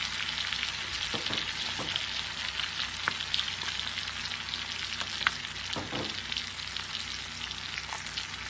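Chicken frying in butter in cast-iron skillets: a steady sizzle, with a few sharp clicks of metal tongs against the pan as pieces are turned.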